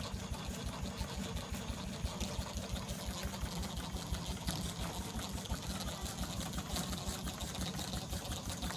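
Small antique steam engine running steadily, with a fast, even beat and a continuous hiss over it.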